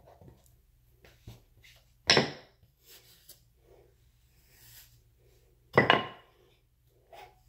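Two short knocks of hard objects on a hard surface, about three and a half seconds apart, with faint rustling of hair being brushed in between.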